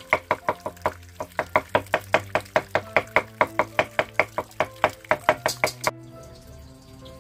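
Knife chopping fast on a round wooden chopping board, a steady run of sharp knocks about five a second that stops about six seconds in, over background music.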